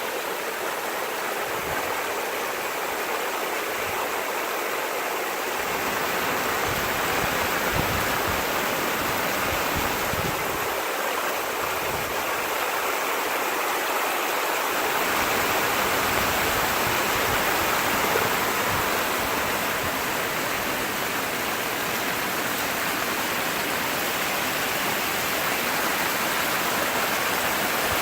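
Heavy rain pouring down, a steady dense hiss of water with no let-up.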